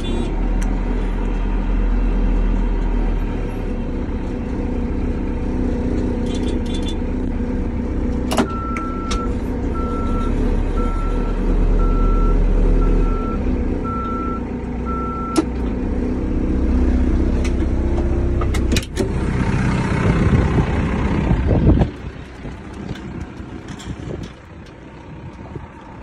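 A backhoe's diesel engine running steadily, heard from inside the cab. For several seconds in the middle its backup alarm beeps about once a second as the machine reverses. A louder rushing stretch comes near the end, then the engine sound drops away sharply.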